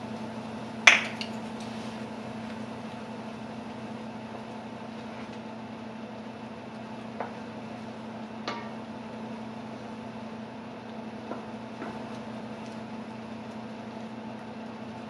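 A sharp clink of a utensil against cookware about a second in, then a few faint taps, over a steady low hum.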